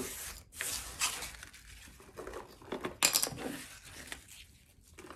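Crinkling and rustling handling noises while tidying up spackling frosting, with louder bursts about a second in and again about three seconds in.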